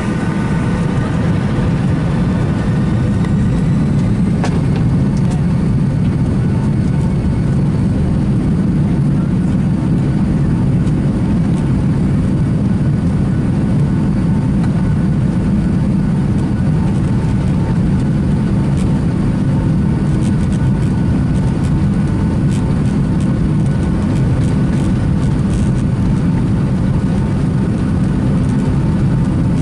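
Boeing 757-200 airliner's jet engines at high thrust during the takeoff roll, heard from inside the cabin: a steady, loud rumble with several thin whining tones above it, and scattered light clicks in the second half.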